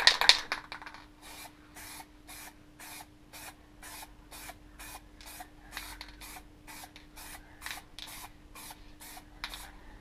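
Aerosol can of clear coat lacquer spraying in short, evenly spaced spurts, about three a second, as light coats go onto an alloy gear knob. It opens with a brief loud rattle, the can being shaken.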